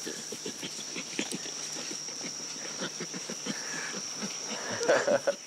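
Young chimpanzee laughing as it is tickled: a quick, steady run of breathy pants, with a louder burst about five seconds in.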